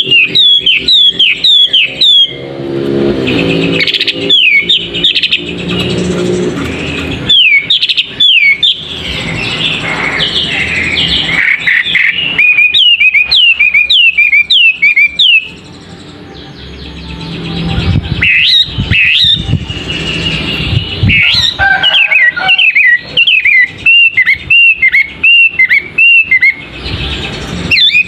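Male wambi songbird singing: phrases of short, high, sharply falling whistled notes, several a second, broken by brief pauses.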